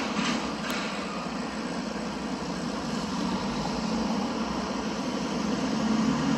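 A vehicle engine running steadily with a low rumble that grows a little louder near the end.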